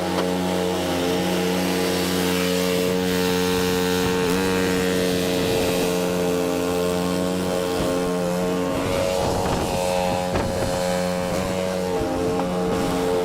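Cub Cadet 2X 30-inch EFI two-stage snow blower's 357 cc engine running steadily, its note turning unsettled for a couple of seconds past the middle.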